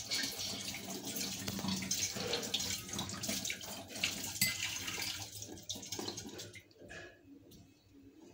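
Kitchen tap running, with water splashing into a sink. It shuts off about two-thirds of the way through, leaving a few faint clinks and splashes.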